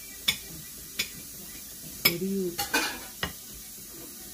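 Metal spoon clinking and scraping against serving dishes and plates as food is dished out. The sharp clinks come one at a time early on, then several close together about two to three seconds in.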